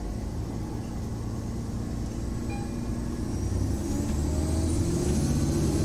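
City transit bus heard from inside the passenger cabin while moving: a steady low engine and road rumble that grows louder, with a faint rising whine in the second half.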